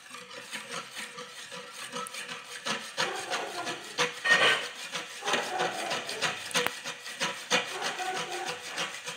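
Kitchen knife scraping the leftover flesh off ripe mango seeds: a run of irregular rasping strokes with a few sharper clicks.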